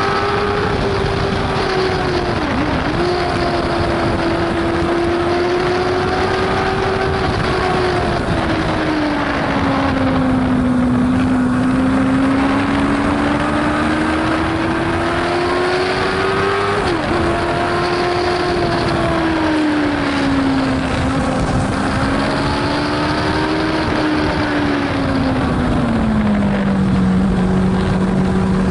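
Racing sidecar's engine heard onboard at high revs, its pitch dropping sharply for a moment at two upshifts, about 3 seconds in and about 17 seconds in. Several times the pitch sinks slowly and climbs back as the outfit slows for corners and accelerates out, over steady wind noise on the microphone.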